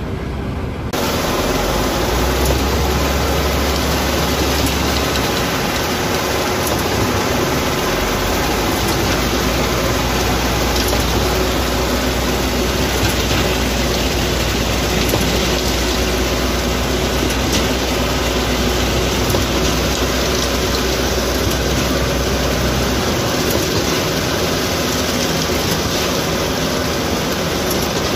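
A concrete mixer truck discharges ready-mix concrete down its chute into a concrete pump's hopper. The heavy diesel engines run loud and steady under the rushing noise of the wet concrete, starting about a second in.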